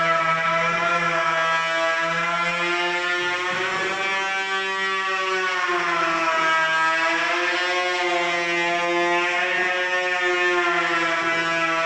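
A continuous droning tone holding one low pitch, with many overtones that slowly swell and fade.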